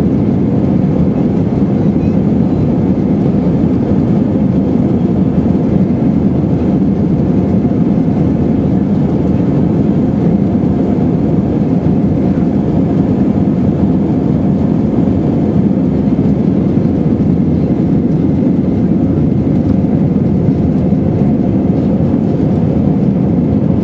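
Steady cabin noise of an Airbus A320 airliner in flight, heard from inside the cabin: an even, unchanging engine and airflow noise.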